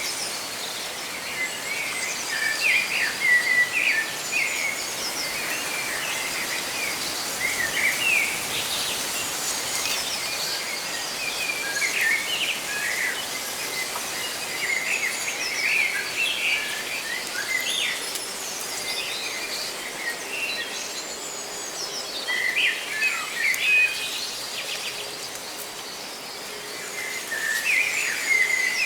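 Several songbirds chirping and trilling in bursts over a steady rustle of leaves in the wind. The calls come in clusters and thin out for a few seconds in between.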